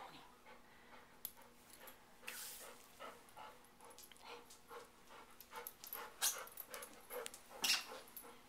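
Golden retriever breathing and moving about close to the microphone, with rustling of fur and blanket in short irregular strokes; a few louder ones come about two seconds in and again near the end.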